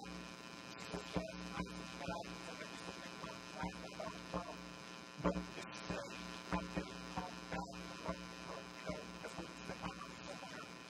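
Steady electrical mains hum with a buzzing edge, broken by irregular clicks and crackles.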